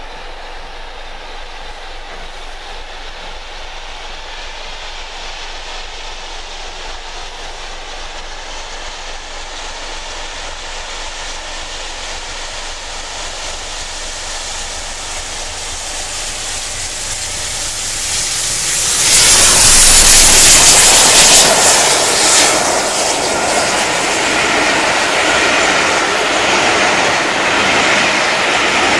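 Steam locomotive 34067 Tangmere, a Bulleid Battle of Britain class Pacific, approaching at speed with a train. The sound grows steadily louder until the engine passes about 19 seconds in, the loudest moment. After that the coaches roll past on the rails.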